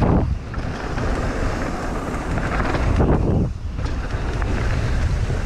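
Wind rushing over the camera microphone of a mountain bike rolling down a dirt trail at speed, swelling twice about three seconds apart.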